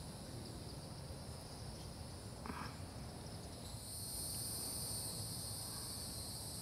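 Steady high-pitched insect trilling in the background, growing louder about four seconds in.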